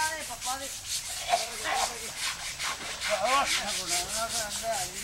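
Steady rhythmic rasping, several strokes a second, like scrubbing. Short pitched calls slide up and down over it, mostly in the second half.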